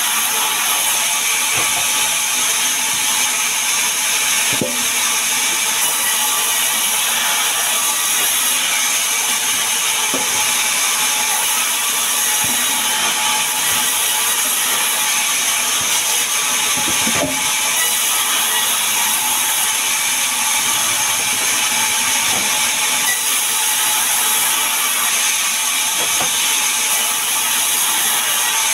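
Sawmill band saw running and cutting sengon logs into boards: a loud, steady high-pitched whine and hiss, with a few knocks scattered through it.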